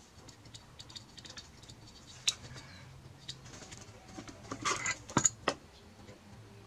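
Small clicks and scrapes of metal and plastic parts being handled while a 26cc two-stroke weed eater engine is taken apart, with a sharp click about two seconds in and a cluster of louder clicks around five seconds.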